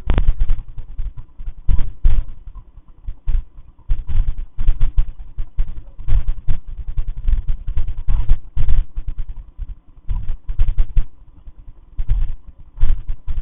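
Loud, irregular thumps and knocks in quick clusters, heavy and low with sharp clicky edges, of unknown origin.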